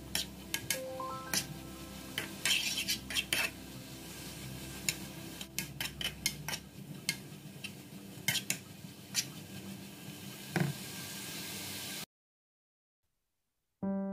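Metal spoon scraping and clicking against a non-stick pan as rice is stirred and fried, in quick irregular strokes; it stops abruptly about twelve seconds in.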